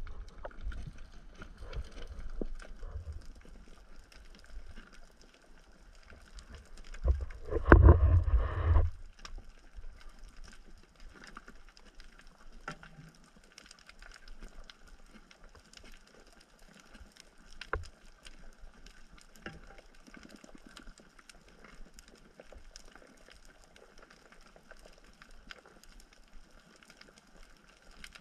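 Underwater ambience on a coral reef: a faint steady noise with a constant crackle of scattered clicks. About eight seconds in there is a louder rush of noise lasting about a second and a half.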